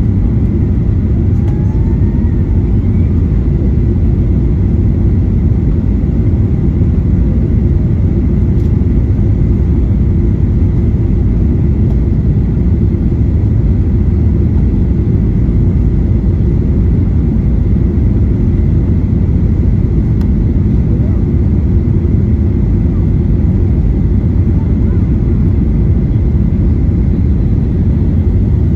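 Steady low roar inside the cabin of a Boeing 737-800 descending on approach with flaps extended: airflow over the fuselage and the hum of its two CFM56-7B engines, heard from a seat behind the wing.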